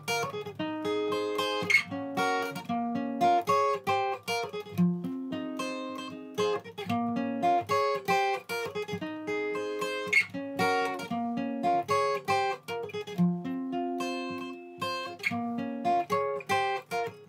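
Acoustic guitar picking a steady, rhythmic run of plucked notes and short chords, with a few sharper accents along the way.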